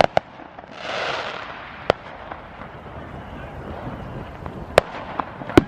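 Fireworks going off: a series of sharp bangs, two at the very start, one about two seconds in and three close together near the end, the last the loudest. A brief hissing rush comes about a second in.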